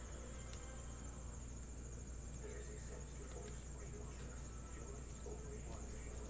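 Low room tone: a steady high-pitched whine and a low hum, with a few faint ticks of baseball cards being handled and sorted.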